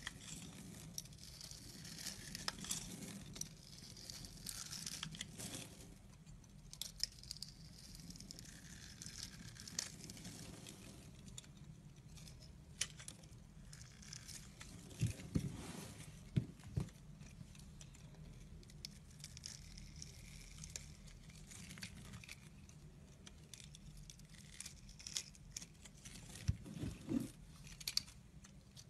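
Snap-off utility knife blade scraping and cutting into a bar of soap, a steady crisp crackling as shavings and small cubes crumble off, with a few louder soft knocks near the middle and near the end.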